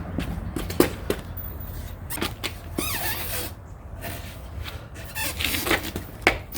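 Manual tire changer at work: scattered knocks and clanks of the tire tool and rim against the changer as a stiff tire bead is forced over the rim edge, with a short rubber squeak about three seconds in.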